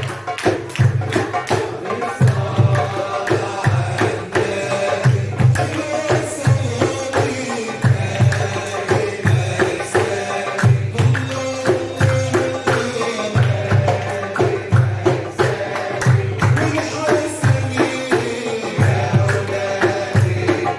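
Egyptian simsimiyya band music: the plucked simsimiyya lyre carrying a melody over a steady, driving hand-drum rhythm.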